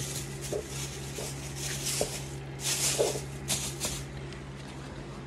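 Crinkly rustling and handling noises, coming in irregular bursts over the first four seconds or so, over the steady low hum of a portable heater running.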